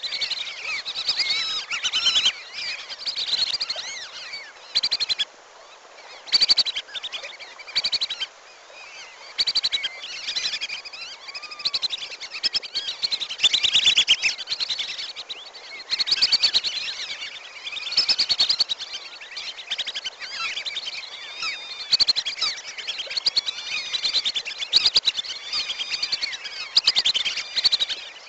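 A flock of wandering whistling ducks (belibis kembang) calling: many overlapping high whistles that rise and fall, mixed with quick chattering runs of short notes. The recording is played as a hunting lure call to draw the ducks in.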